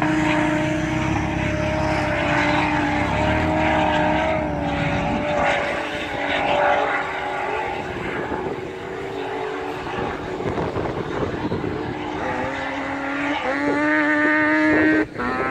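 Supercharged 4x4 engine working hard in soft sand, heard from a distance: a steady whining note through the first several seconds that fades, then climbs in pitch again near the end as it revs.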